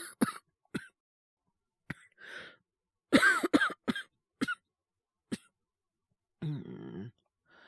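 A man coughing repeatedly in short, sharp coughs, with the hardest fit of several coughs about three seconds in, then a short low voiced sound near the end. It is the coughing of someone with a sore throat from a cold.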